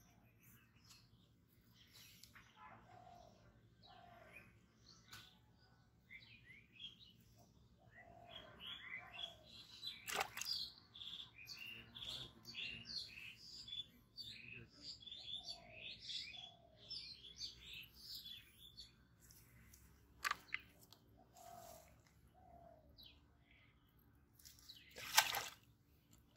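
Songbirds chirping and calling, busiest in the middle, with a short falling call note repeated again and again. Three sharp clicks or knocks break in, the loudest near the end.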